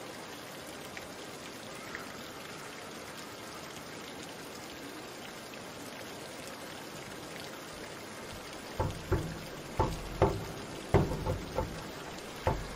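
Steady watery hiss of the diving pool, then a run of irregular dull thumps and knocks in the last four seconds.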